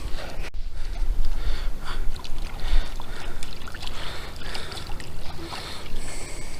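Uneven low rumble and rustling noise on the microphone, with scattered small clicks.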